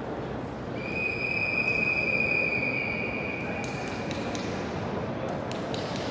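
A referee's whistle gives one long, steady blast of about three and a half seconds over the echoing hum of an indoor pool hall. This is the long whistle that calls backstroke swimmers into the water for the start. A few sharp knocks follow near the end.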